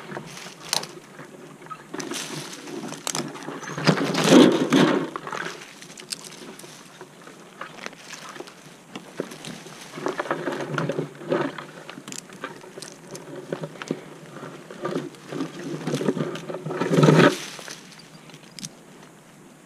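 Handling noise from a tree climber working in the canopy: irregular scraping and rustling against branches and leaves, with scattered small clicks of rigging hardware and steel cable. There are louder stretches about four seconds in and again near seventeen seconds.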